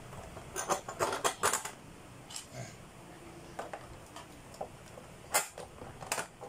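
Light plastic and metal clicks and knocks as the black plastic seat of a baby tricycle is fitted onto its metal seat post with screws. A quick cluster of clicks comes about a second in, then single knocks every second or so.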